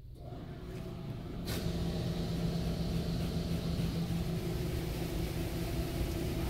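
Touchless in-bay car wash machine (PDQ Tandem ProTouch) starting up with a steady motor hum. About a second and a half in, its high-pressure water jets begin spraying against the car with a loud, even hiss, heard from inside the car.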